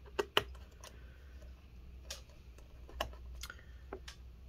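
Scattered small, sharp clicks of a Torx T5 screwdriver working the tiny bottom-cover screws of a laptop, two close together near the start and a few more spread through the rest.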